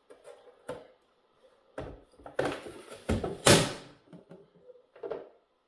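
A run of knocks and thuds from onion being chopped and pressed on a cutting board, with a scraping rush around the loudest blows a little past three seconds in.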